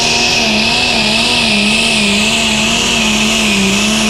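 Super stock pulling tractor's turbocharged diesel engine running at full power under load as it pulls the sled. Its pitch wavers up and down about twice a second, with a steady high whine over it.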